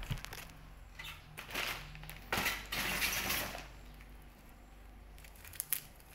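Clear plastic air-cushion packaging crinkling and rustling as it is handled and pushed aside, loudest in a dense stretch in the middle. A couple of sharp clicks near the end.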